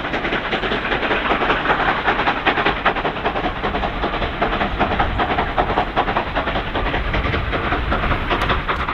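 Victorian Railways Y class 0-6-0 steam locomotive Y112, double-headed with K class 2-8-0 K153, working hard up a 1 in 50 grade with loud, rapid, overlapping exhaust beats and hissing steam as it passes close by.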